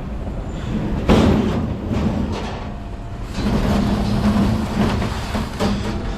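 Vehicle engine running with a steady low rumble, and a sharp bang about a second in.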